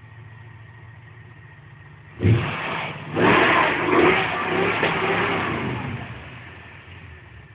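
1971 Ford Mustang Grande's engine idling, then revved twice: a short blip about two seconds in, then a longer rev a second later that holds for a few seconds before dropping back to idle.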